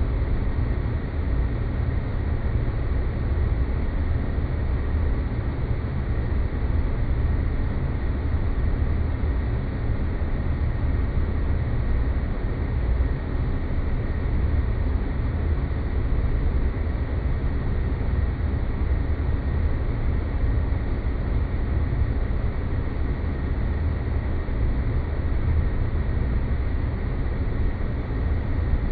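Sci-fi 'space planet' ambience sound effect: a steady, unbroken low rumbling noise with a faint thin tone held high above it.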